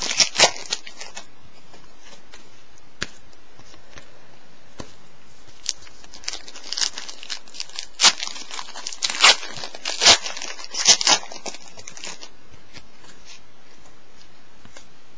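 A foil trading-card pack being torn open and crinkled: sharp crackling bursts just after the start and a busier run of them from about six to eleven seconds in, with scattered small clicks of the cards being handled between and afterwards.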